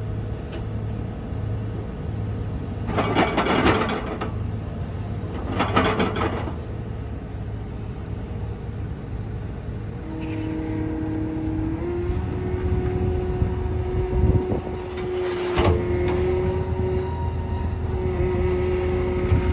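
Caterpillar compact track loader's diesel engine running steadily, with two short bursts of hiss early on. About halfway a whine comes in and steps up in pitch, with a few knocks.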